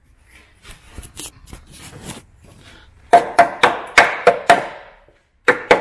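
Small hammer striking the underside of a rusty Mk1 Mazda MX5, knocking off thick underseal and surface rust to check the metal beneath. After some faint scraping, a quick run of sharp, ringing metallic strikes, about four a second, then a brief pause and more strikes near the end.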